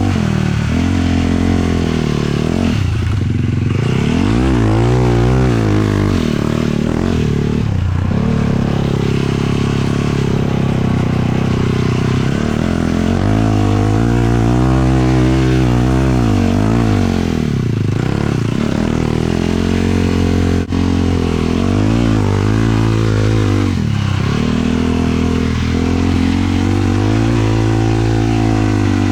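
450cc single-cylinder sport quad engine being ridden, revving up and down over and over, its pitch climbing and falling every few seconds.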